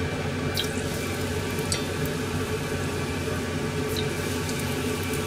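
Pot of hot deep-frying oil sizzling and bubbling steadily, with a few sharp pops, over a steady low hum.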